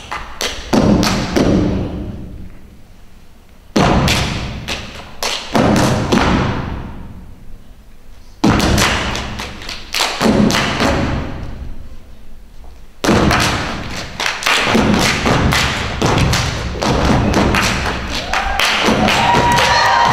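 A step team stepping on a wooden stage: rhythmic foot stomps and hand claps in four bursts of a few seconds each, with short pauses between. The audience starts to cheer near the end.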